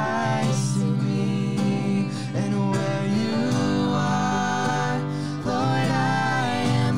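A worship song sung by several voices, men and women together, over strummed acoustic guitar and piano.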